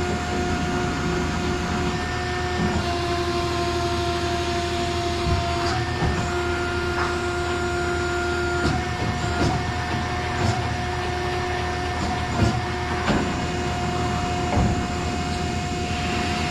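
Plate rolling machine running as it rolls a flat steel plate into a curve: a steady hum and whine that shifts pitch a few seconds in and again about halfway, with scattered knocks.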